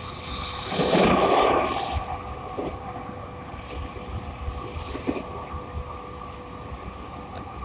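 E217 series electric commuter train running between stations, heard from inside: a steady rumble with a steady whine, and a loud rushing surge about a second in that dies away within a second.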